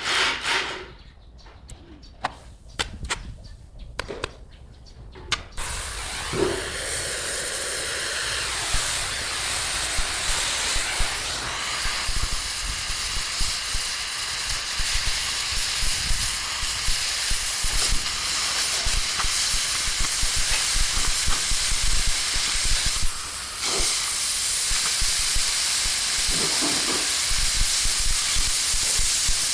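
A few sharp clicks, then about five seconds in a steady, loud hiss starts and carries on, with a brief dip well past the middle.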